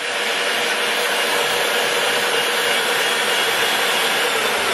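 Birmingham LUX 1440G engine lathe running with its spindle at high speed, in high gear and on the two-speed motor's high setting: a steady, even whir of motor and headstock gearing, with a faint steady hum.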